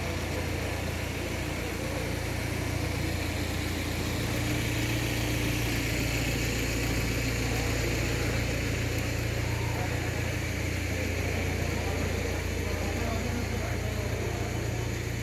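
A steady low engine hum, like a motor vehicle running, over a constant wash of background noise.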